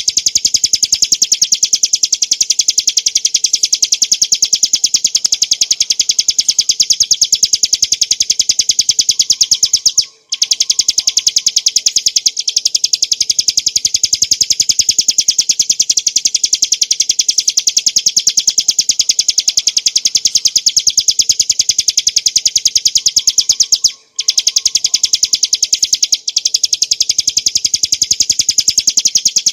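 Ciblek gunung (a prinia) singing a very fast, unbroken stream of high, sharp chipping notes, with two short breaks.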